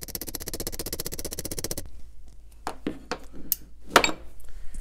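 A small hammer tapping quickly on a crushed die-cast toy car body held on a vise anvil, many light metal-on-metal taps a second, hammering the bent roof straight. The tapping stops about two seconds in, giving way to a few scattered clicks and knocks as the casting is handled.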